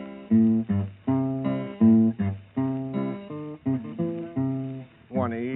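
Music: an acoustic guitar strumming the opening chords of an old-time country song. A man's voice starts singing near the end.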